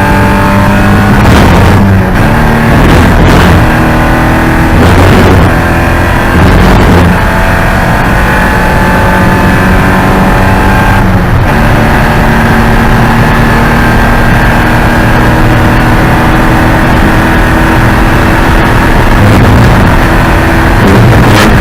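Porsche 944 Spec race car's four-cylinder engine running hard at high revs. The note holds fairly steady, with a few short breaks in the first seven seconds and another about eleven seconds in.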